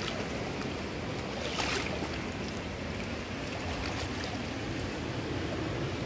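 Steady rushing of a fast river, with one brief louder burst about one and a half seconds in.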